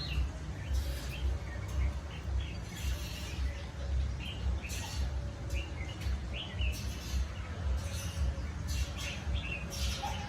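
Small birds chirping with short, repeated calls scattered throughout, over a steady low rumble.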